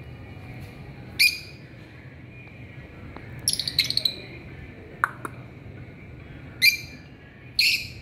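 Rosy-faced lovebirds calling with short, shrill chirps: one about a second in, a quick run of several around three and a half seconds in, and two more near the end, with a couple of faint clicks between.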